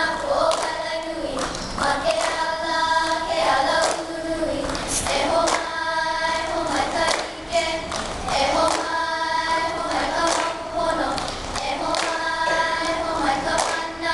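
A group of schoolgirls singing a hula song together in unison, in phrases a few seconds long, with sharp hand claps now and then.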